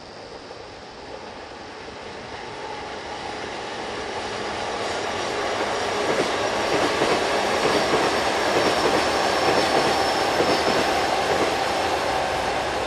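Electric multiple-unit train approaching along the line, its wheels rumbling on the rails and growing steadily louder, loudest about eight to ten seconds in and easing slightly near the end, with a faint high whine over the rumble.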